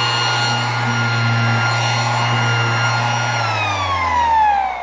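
Ridgid 18-volt cordless 5-inch random orbital sander running steadily on its lowest speed setting, speed 1, with a steady hum and whine. About three and a half seconds in it is switched off, and the whine falls in pitch as the motor spins down. It is not that loud.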